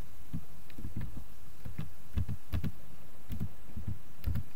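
Computer keyboard being typed on: a run of short, unevenly spaced key presses over a steady low hum.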